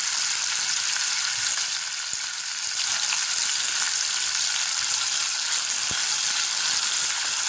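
Sliced onions sizzling steadily in hot ghee and sesame oil in an aluminium pressure cooker pan, frying lightly. A wooden spatula stirs them near the end.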